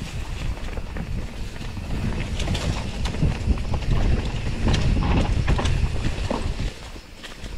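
Wind buffeting the microphone of a mountain bike rider on the move, with scattered clicks and knocks of the bike rattling over a rough dirt trail. It eases a little near the end.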